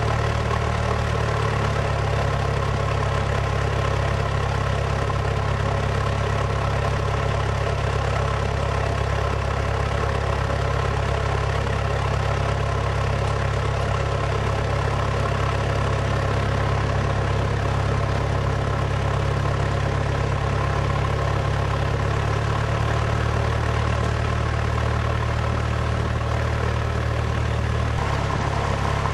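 Cessna 172's piston engine and propeller running, a steady drone heard inside the cabin. Its low hum shifts slightly about a second in and again near the end.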